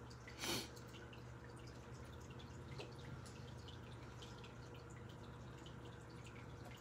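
Faint scattered clicks and small taps, as of small supplies being handled, over a low steady hum. There is one short hiss about half a second in.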